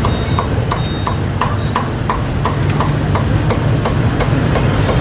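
Cleaver chopping crisp-skinned roast pork on a thick wooden chopping block: quick, even knocks, about three a second, over a steady low hum.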